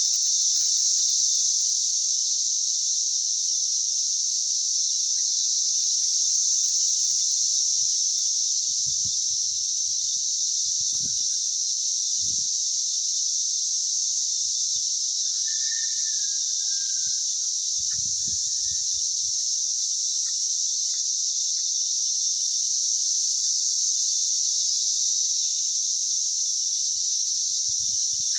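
Cicada chorus: a dense, steady, high-pitched buzz that never lets up. A short whistled call sounds about halfway through, and a few faint low knocks come and go.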